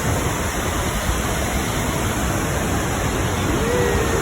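Steady rush of the Krimml Waterfalls' falling water, an even, loud noise with no breaks.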